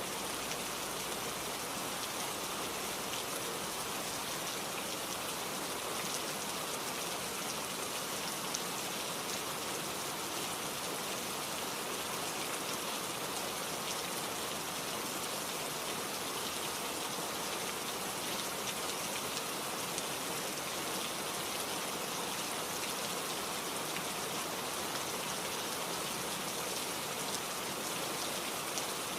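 Steady rain falling on a surface, an even hiss of many small drops with faint scattered patter.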